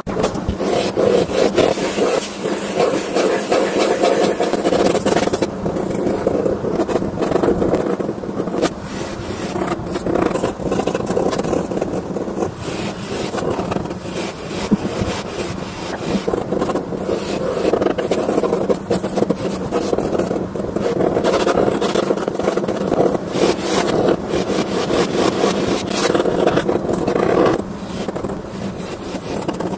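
Pen nib scratching across paper in rapid, continuous sketching strokes.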